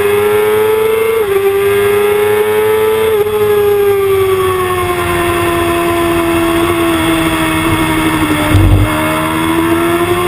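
Sport motorcycle engine under hard acceleration, its pitch climbing and dropping sharply twice as it shifts up. The revs then sink slowly for several seconds before rising again, with heavy wind rush over the bike-mounted camera. There is a brief low thump near the end.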